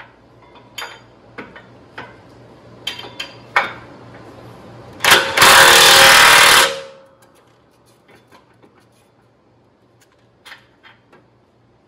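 A DeWalt cordless impact hammering for just under two seconds, about five seconds in, as it runs down a 15/16 pillow block bolt. Light metal clicks and clinks come before and after it.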